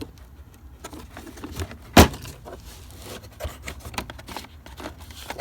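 Metal hand tools clinking and clattering as they are handled in a toolbox drawer, with one loud sharp knock about two seconds in.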